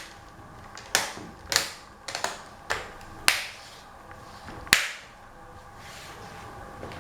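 Plastic screen bezel of a laptop lid being pressed on, its retaining clips snapping into place in a series of sharp clicks, roughly one every half second, with a last loud snap nearly five seconds in.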